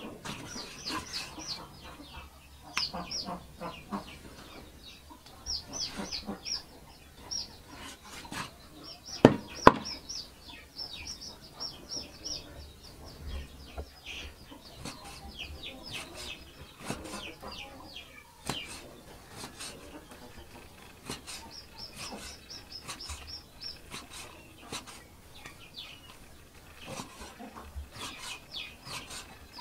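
Steel cleaver chopping raw pork on a wooden chopping block, irregular knocks with two sharp loud strikes about nine seconds in, while birds chirp repeatedly in clusters in the background.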